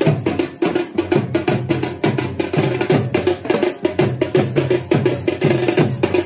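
Dhol drums beaten with sticks in a fast, steady dance rhythm.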